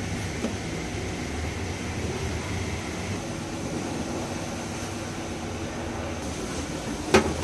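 Steady low hum and hiss of background machinery, with a single sharp knock near the end.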